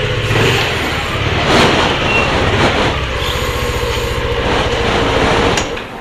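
Motor scooter's single-cylinder engine running at low speed while the scooter rolls in to park, picked up by a helmet-mounted microphone. The engine sound drops sharply near the end.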